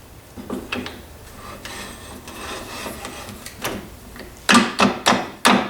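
Hand tools and metal lathe parts handled during disassembly: small clicks and scraping, then four loud knocks in quick succession near the end.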